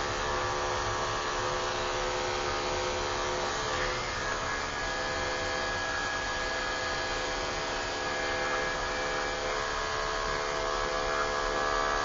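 Electric dog grooming clippers running steadily with a hum, shearing a poodle's facial hair.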